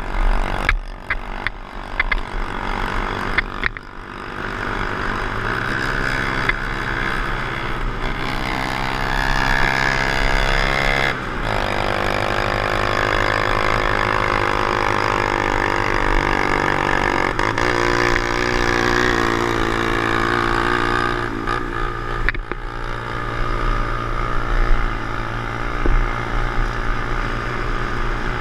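Honda CT110 postie bike's small single-cylinder four-stroke engine running under load as it climbs a rough dirt track, with the engine note stepping down about eleven seconds in and again a few seconds later. Knocks and rattles from the bike jolting over rocks come at the start and near the end.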